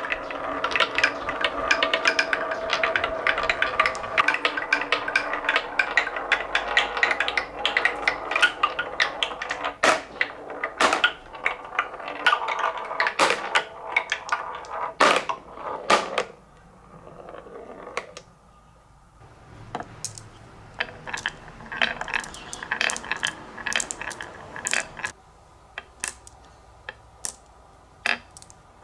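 Many marbles rolling and clacking down a marble run's slopes in a dense, rattling clatter, thinning after about halfway to scattered single clicks as the last marbles come through.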